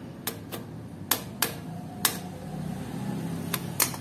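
Irregular sharp metallic clicks and taps, about eight in four seconds, as a cog on a threaded 7-speed freewheel is worked loose with a chain whip and tools.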